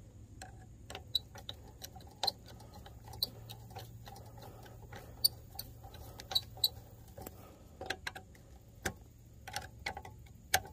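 Flathead screwdriver working license-plate screws tight against the metal plate: a string of light, irregular clicks and taps over a faint low hum.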